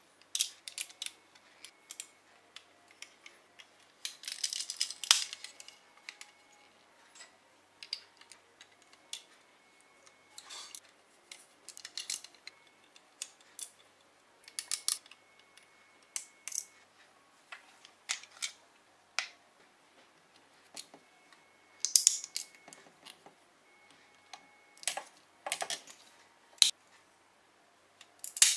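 Lego plastic parts clicking and rattling as a small Lego mech is handled, folded and posed: irregular sharp clicks and snaps of joints and hinges, with denser spells of rattling about four seconds in and again near the end.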